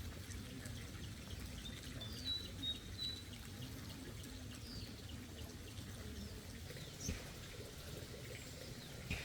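Small birds chirping in short high whistles over a low background rumble, with two soft knocks near the end.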